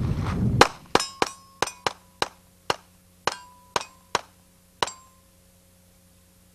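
Pistol fired rapidly, about eleven shots in some four seconds, several of them followed by the ringing clang of steel targets being hit; the shooting stops a little before five seconds in.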